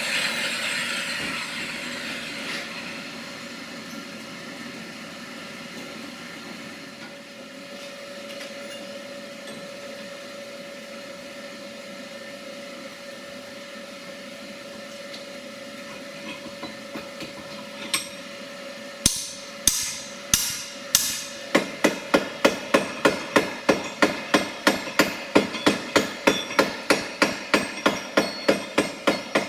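Forging hammer striking steel on an anvil, a few separate blows and then, about twenty seconds in, a steady run of about three to four blows a second. Under it is a steady hum.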